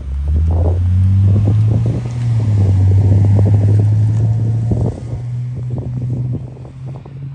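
A car engine running loudly close by, a deep steady note that shifts in pitch about two seconds in and again near five seconds, as the car moves off over the crossing.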